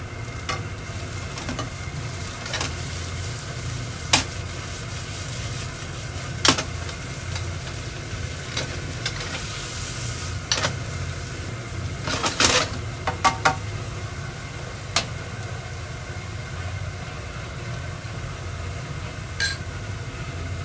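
Tofu cubes and minced garlic frying in a nonstick pan with a light sizzle, while metal tongs click against the pan and tofu as the pieces are turned. Around the middle the pan is tossed, with a short burst of clattering. A steady low hum runs underneath.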